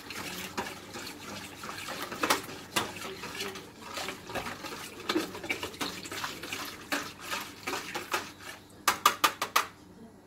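A hand swishes and stirs warm water in a plastic bowl, dissolving yeast for a dough sponge, with irregular light splashes and knocks against the bowl. A quick run of sharp clicks comes near the end.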